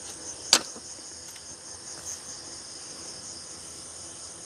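Steady high-pitched night chorus of crickets and other insects. About half a second in, a single sharp click, a knife striking the cutting board as steak is cut.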